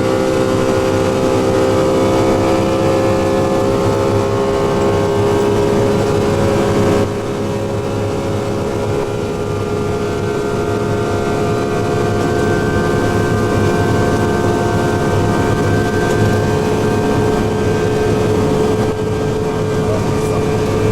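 Rolls-Royce RB211 turbofan on a Boeing 757 running at high power in a ground run test: a steady, loud engine noise with several whining fan and compressor tones over it. The level drops suddenly about seven seconds in, and the tones slowly rise in pitch through the second half.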